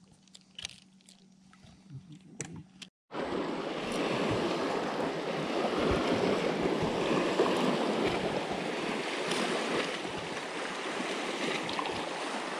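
A few faint clicks, then from about three seconds in a steady rushing noise of wind and water at the boat.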